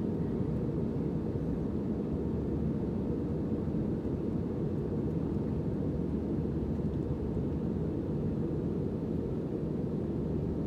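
Steady low cabin noise of an airliner: engine and airflow noise heard inside the passenger cabin, with a faint steady whine above it.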